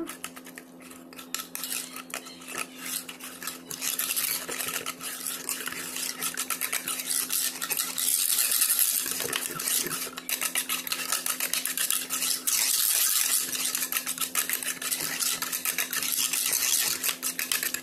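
Wire whisk beating runny batter in an aluminium pan: a rapid, continuous clatter and scrape of the wires against the metal, growing louder about four seconds in. The batter is being whisked until smooth and free of lumps.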